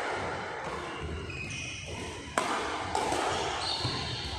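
Badminton rally: a sharp racket-on-shuttlecock hit about two and a half seconds in and a lighter hit half a second later, with short high squeaks of shoes on the court floor.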